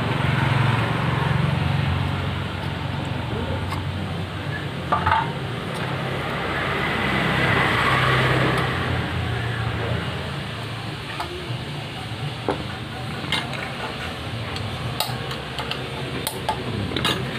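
A few short metallic clinks of scooter CVT parts and tools being handled, over a steady low hum.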